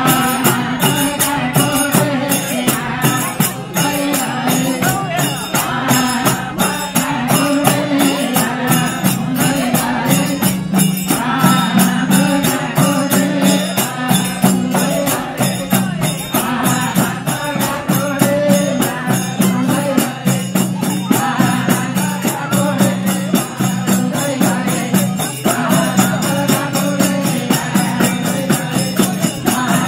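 Nepali bhajan (devotional song) played for dancing: sung phrases that come and go every few seconds over a steady held drone, driven by a fast, even percussion beat.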